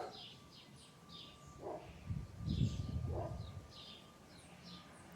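Small birds chirping repeatedly, with a dog giving a few short barks, and a low rumble rising and fading in the middle.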